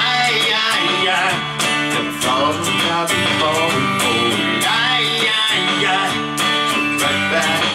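A man sings a country-flavoured song while strumming an electric guitar, over a steady beat.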